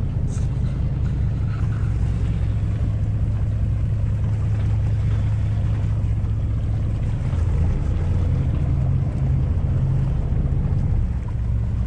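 Sportfishing boat's engine running with a steady low drone, with wind and water noise over it.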